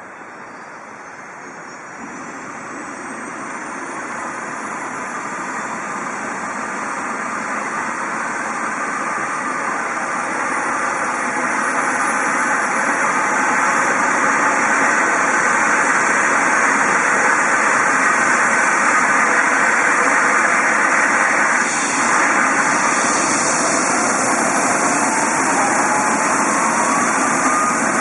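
Eurocopter EC 135's twin turboshaft engines starting up as the main rotor begins to turn: a rising turbine whine that grows steadily louder for about sixteen seconds, then holds steady. A second whine starts rising near the end.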